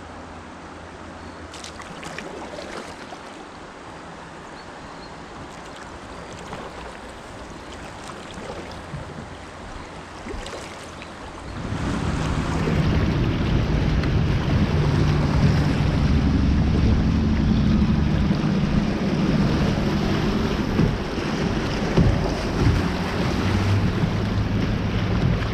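Kayak on a river riffle: a fairly quiet wash of water at first, then about halfway a sudden loud rush of fast water with heavy wind rumble on the microphone as the boat runs the fast stretch.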